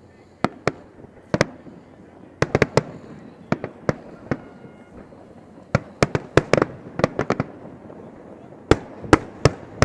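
Fireworks going off in an irregular string of sharp bangs and cracks, about twenty in all, some in quick clusters of two or three and others alone.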